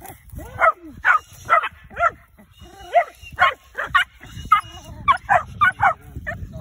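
Dogs barking and yipping as they face off and lunge at each other: a rapid string of about fifteen short, sharp barks, roughly two a second.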